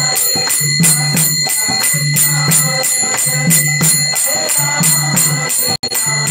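Karatalas (small brass hand cymbals) struck in a steady kirtan rhythm, about three strikes a second, their ringing held between strikes over a low instrumental accompaniment. The sound drops out for a moment near the end.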